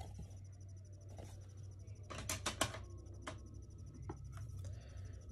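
Hard plastic graded-card slabs clicking and tapping as they are handled: a quick cluster of clicks a little past two seconds in, then a couple of single clicks, over a steady low hum.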